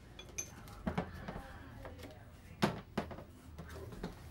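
Parts of a DSLR shoulder rig being handled and set down on a desk: a few sharp knocks and clicks, the loudest about two and a half seconds in.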